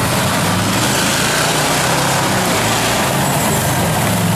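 Off-road mud truck's engine running hard at steady high revs as its tyres spin in deep mud, loud and continuous.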